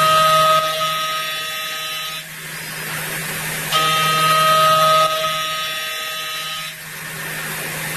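DMG MORI vertical machining centre milling a small metal part: a pitched cutting whine that comes in passes of about three seconds, broken by short pauses of about a second and a half, over a steady low hum.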